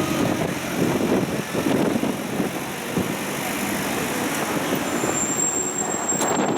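Engine and road noise of a tourist road train on the move, heard from aboard, with the sound of surrounding traffic. A thin high tone sounds near the end and stops with a click.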